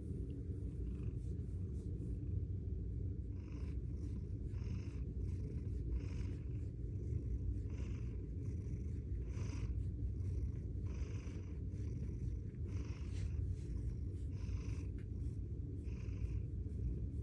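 Silver Bengal cat purring close up, a steady low rumble, with faint rustling about once a second from a few seconds in.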